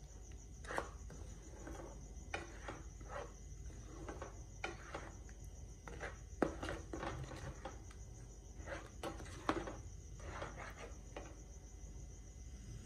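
Plastic spoon stirring thick apple purée in an aluminium pan: irregular soft clicks, taps and wet squelches as the spoon moves through the mash and touches the pan.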